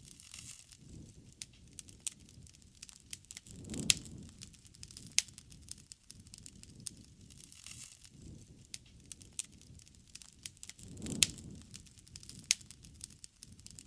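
Wood campfire crackling, with irregular sharp pops and snaps over a soft hiss. A low rumble swells twice, about four seconds in and again near eleven seconds, with the loudest pops.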